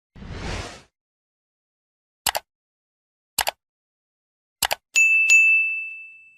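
Intro sound effects: a short whoosh, then three quick double clicks about a second apart, then a bright bell-like ding struck twice that rings out slowly.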